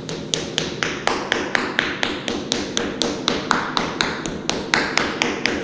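Rubber mallet tapping a self-adhesive PVC vinyl floor plank over and over, about four quick strikes a second, pressing it down so the adhesive bonds to the floor.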